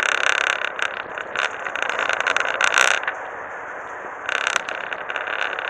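Daiwa Super Tanacom S600 electric fishing reel winding in line under load, its motor whining steadily with ticking over it. The whine drops away about three seconds in and resumes about a second later.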